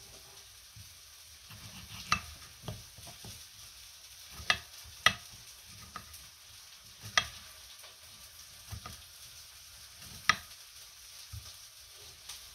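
Chef's knife slicing a tomato on a granite cutting board, the blade knocking sharply against the stone about five times at uneven intervals, with softer taps between.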